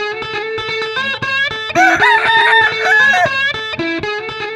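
Plucked guitar riff, with a rooster crowing once over it starting about two seconds in.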